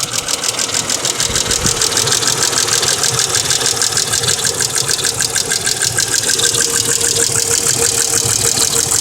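Mercedes ML320's 3.2-litre V6 petrol engine idling with a rapid, even clicking in time with the engine, which the owner takes for lifter noise that began after an oil change. A steady tone joins in about six seconds in.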